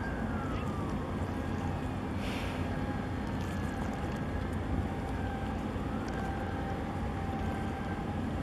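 Steady low engine rumble of a boat, with a faint steady tone over it and a few faint gliding whistles. A brief hiss comes about two seconds in.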